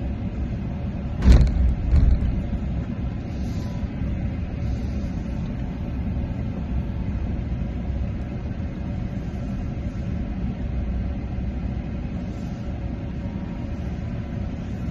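Steady low rumble of background noise, with two short thumps about a second in.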